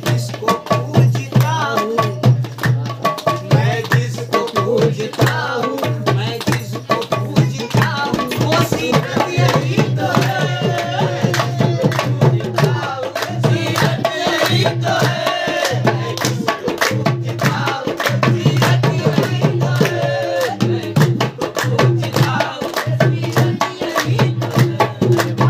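Live devotional folk song: a man sings over tabla and dholak drumming, with the group clapping along.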